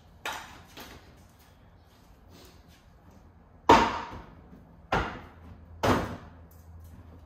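Four sharp knocks and clunks of a plastic rear bumper cover being pulled off its clips and handled. The loudest comes a little past the middle, and two more follow about a second apart.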